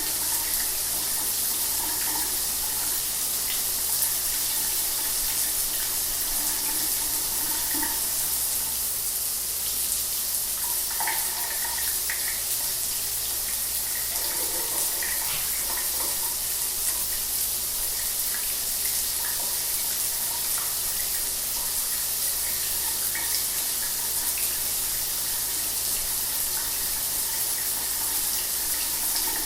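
Shower water running steadily, a continuous hiss of spray with small splashes in it.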